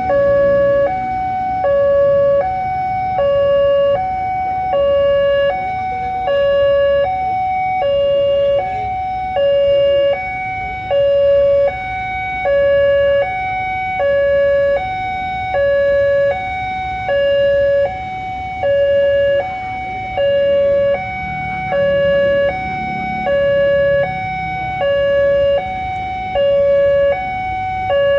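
Railway level crossing warning alarm sounding a steady two-tone hi-lo pattern, switching between two pitches about every two-thirds of a second, which signals that a train is approaching and the barriers are closing.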